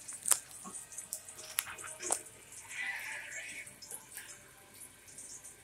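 Onion pieces frying in hot oil in a stainless steel pan: a light crackle with a few sharp pops.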